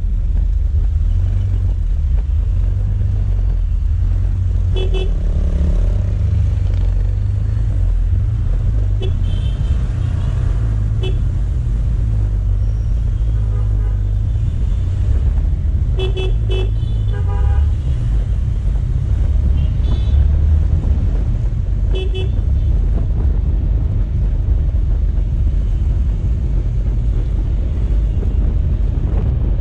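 Steady low rumble of motorcycle and car traffic while riding among it, with about eight short horn beeps from surrounding vehicles, most of them in the first two-thirds and several in quick pairs.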